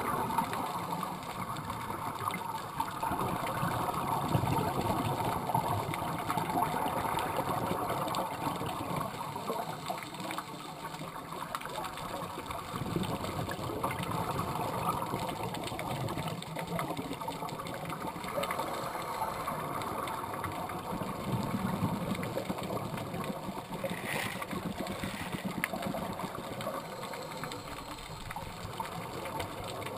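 Muffled underwater sound through a camera's waterproof housing: a steady crackling hiss with slow swells of bubbling from scuba divers' exhaled breath.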